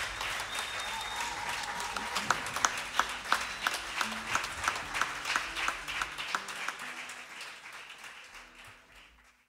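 Audience applauding after a song, with single claps standing out about three times a second, fading out to nothing near the end.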